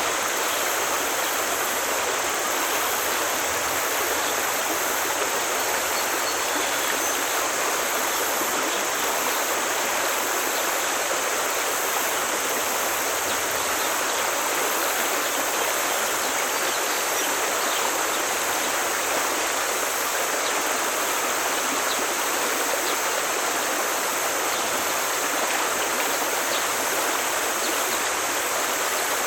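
Forest stream flowing: a steady, even rush of running water.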